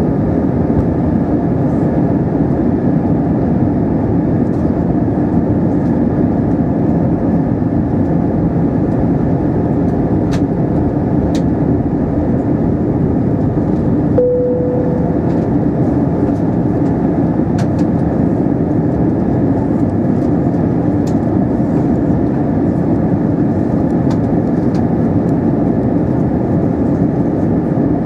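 Steady cabin noise inside an Airbus A320 on approach: the hum of its IAE V2500 engines and rushing airflow, unchanging throughout. A short single tone sounds about halfway through, and there are a few faint clicks.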